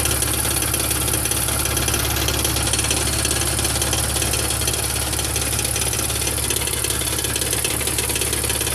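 A 2001 BMW E46 idling, with a steady metallic rattle from underneath that the owner suspects is the catalytic converters going out.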